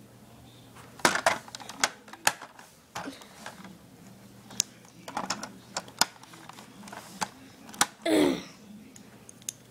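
Irregular sharp clicks and knocks of hard plastic toy-car parts being handled as wheels are snapped in. A short voice sound with falling pitch comes near the end.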